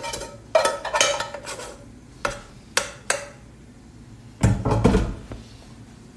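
Metal spoon scraping and knocking instant noodles out of a pan onto a ceramic plate: a run of sharp clinks, then a heavier, duller clatter about four and a half seconds in.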